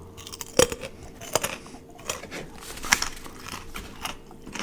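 Close-miked crunchy chewing: a run of small crackles broken by three sharp, loud crunches, one about half a second in, one near a second and a half and one near three seconds.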